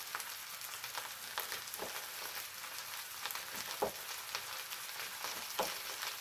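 Fennel slices frying in olive oil on a stovetop griddle: a steady crackling sizzle. Three knife knocks on a wooden cutting board come about two seconds apart as a lemon is trimmed.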